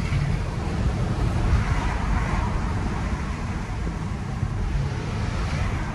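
Road and tyre noise with a steady low rumble, heard inside the cabin of a 2024 Tesla Model 3 rolling along a city street; the electric drive itself is completely silent.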